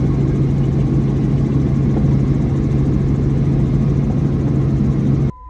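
Robinson R44 helicopter running, a loud steady drone with a strong low hum from its engine and rotors. It cuts off abruptly near the end.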